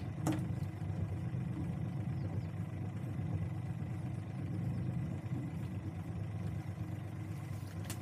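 Small fishing boat's engine idling, a steady low hum, with a sharp knock just after the start.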